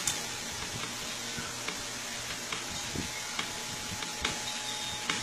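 Steady background hiss of a quiet room picked up by a phone microphone, with a faint steady hum and a handful of faint scattered clicks and taps.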